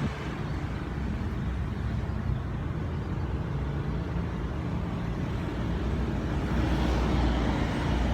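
Steady low outdoor rumble with a faint hum in it, growing a little louder near the end.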